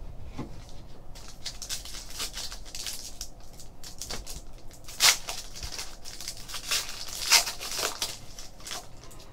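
Foil wrapper of a 2014-15 Panini Select basketball card pack crinkling as it is torn open by hand, with a sharp rip about halfway through and another a couple of seconds later.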